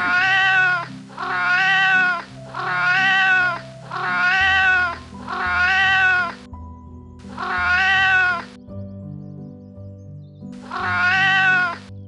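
Domestic cat meowing: seven drawn-out meows of about a second each, each rising slightly and falling in pitch. The first five come in quick succession, then two more after longer pauses.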